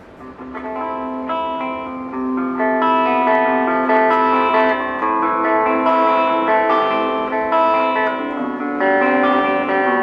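Electric guitar played clean through a Belcat G-10 small practice amp: ringing notes and chords that start softly about half a second in and build into overlapping, sustained notes.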